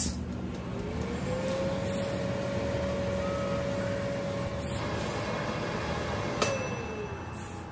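Philips Walita air fryer preheating: its fan whine rises in pitch over about half a second and then runs steadily with a low hum. About six and a half seconds in comes a sharp click with a short metallic ring, the timer bell marking the end of the preheat, and the fan whine falls away.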